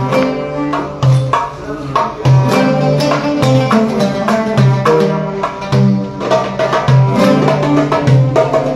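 Live Arabic folk music without singing: an oud plucking a melody, joined by a violin, over a steady low pulse.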